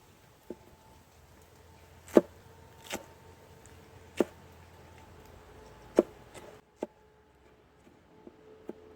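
A series of sharp chopping strikes, about seven or eight at uneven intervals, the loudest about two seconds and six seconds in.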